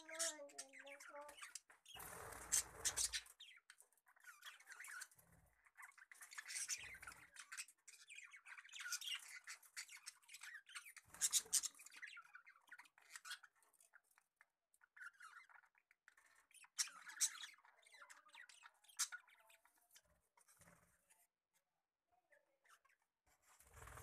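Budgerigars chirping and chattering in irregular bursts of high chirps and clicks, with a few louder bursts of noise.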